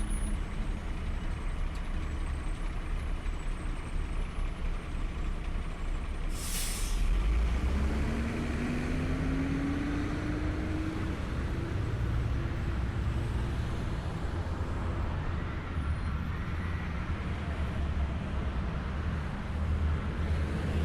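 Large road vehicle's engine running with a steady low rumble. About six seconds in there is a short burst of air hiss, like an air brake releasing, and a few seconds later the engine pitch rises slowly as it pulls away.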